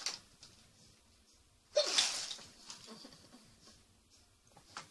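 A woman's loud hiccup about two seconds in, a sudden catch followed by a rush of breath that fades over about a second. It is part of a persistent, painful bout of hiccups. Fainter breath sounds come near the start and near the end.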